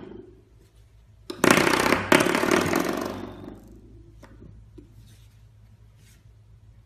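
Spring door stop flicked by a puppy, twanging with a buzzing rattle: struck about a second in and again just after, then dying away, with a few faint taps afterwards.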